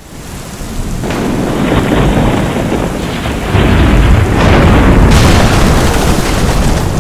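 Thunderstorm sound effect: steady heavy rain with rolling thunder rumbles, fading in at the start and swelling louder. About five seconds in the sound turns suddenly brighter and hissier.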